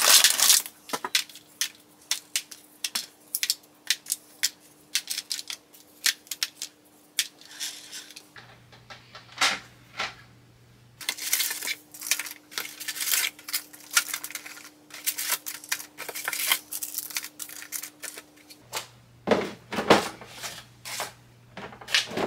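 Household handling sounds: many quick clicks, taps and clatters, with patches of crinkling, as objects are picked up and set down on a hard surface.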